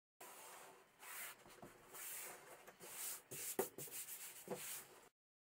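Hands rubbing and pressing over a sheet of PastelMat paper and the masking tape along its edge, a dry scratchy rubbing with several light taps, the sharpest about three and a half seconds in.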